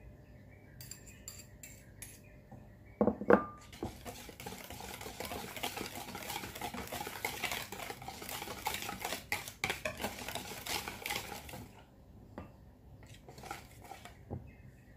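Wire whisk beating batter in a bowl, the wires clicking and scraping against the bowl for about eight seconds, then tapping a few times near the end. A sharp knock about three seconds in is the loudest sound.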